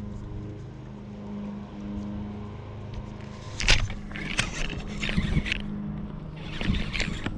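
Boat motor humming steadily, with a run of sharp, noisy knocks and rattles starting about halfway through, the loudest at the start of the run.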